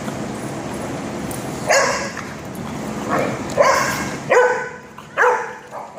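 A dog barking, about five sharp barks starting a couple of seconds in, over a steady low hum that stops about two-thirds of the way through.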